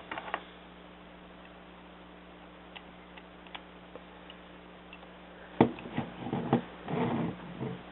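Small plastic clicks and knocks from a Lego model being handled: a few faint ticks, then a cluster of sharper clicks over the last two seconds or so, over a steady low electrical hum.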